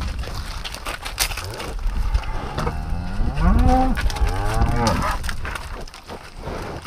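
Cattle mooing: one long moo of about two and a half seconds, starting a couple of seconds in, rising in pitch and then falling away.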